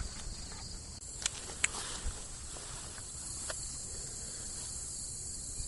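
Steady high-pitched chorus of crickets in the background, with a few faint ticks.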